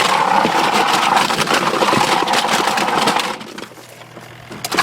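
Small RV washing machine running with a brick inside: loud, rapid clattering and banging of the brick against the tub. The clatter stops about three seconds in, leaving the machine's motor humming, and starts again near the end.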